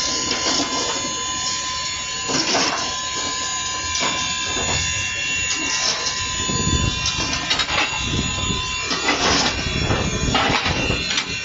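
Cab of a steam locomotive standing under steam: a steady hiss with a steady high tone that stops about eight seconds in, and scattered metallic clanks and knocks.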